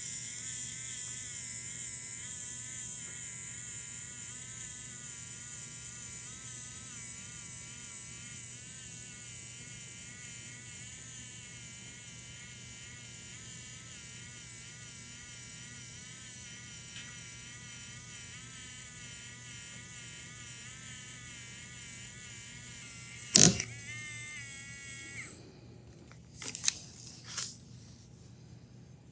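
PIKA 3D printing pen's small feed motor whining steadily as it pushes PLA filament through the hot tip, its pitch wavering slightly. A sharp click comes a little before the end, the motor stops shortly after, and a few light knocks follow.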